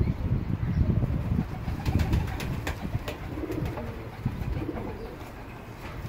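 A flock of pigeons at a feeder, cooing, with wings flapping in loud, irregular flurries during the first half. A few sharp taps come about two to three seconds in.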